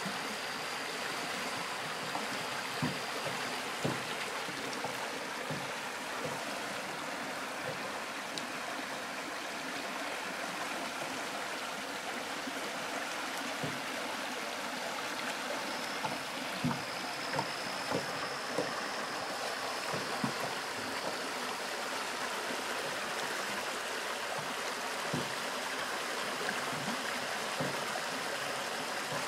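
Water running in a stream, a steady rush with occasional short low gurgles or knocks.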